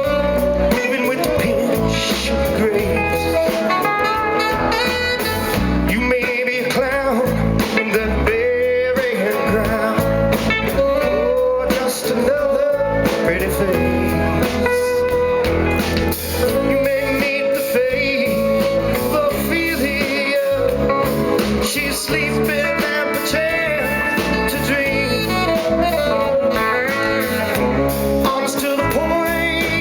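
Live band playing a bluesy rock tune: a wavering electric guitar lead over bass and drums.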